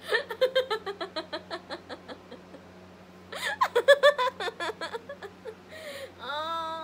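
A woman laughing hard in two bouts of quick, evenly repeated bursts, the second starting about three seconds in and the loudest. Near the end a drawn-out, wavering vocal sound.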